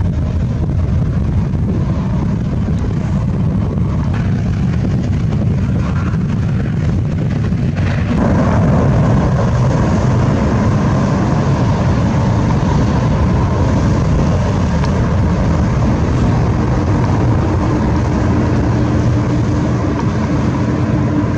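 Jet engines at takeoff power as aircraft climb out: a steady, loud, low rumble. About eight seconds in it changes abruptly to a second climb-out, an Airbus A321's, which is slightly louder and brighter, with a faint steady whine over the rumble.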